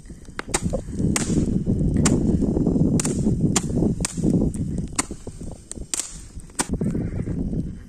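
Bonfire crackling, with irregular sharp pops over a low rumbling noise.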